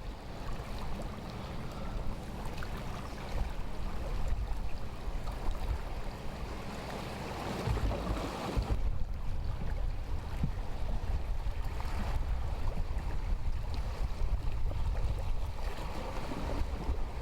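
Wind buffeting the microphone over a steady rush of water, as heard aboard a boat under way.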